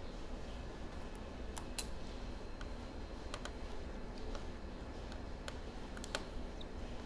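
Scattered light clicks and taps of small tools against laptop parts, about a dozen, with two sharper ones about two seconds in and near the end, over a steady low hum.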